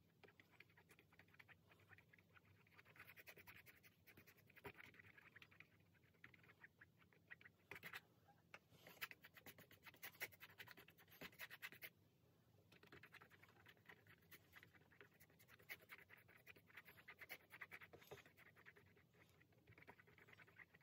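Faint scratching and dabbing of a paintbrush working acrylic paint across a canvas, in quick uneven strokes that come in flurries, with a short lull about twelve seconds in.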